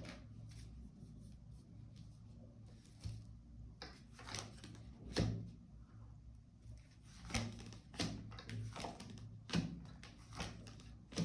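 Tarot cards being handled and laid down on a table: scattered soft taps and slaps, several of them a second or two apart, over a low steady hum.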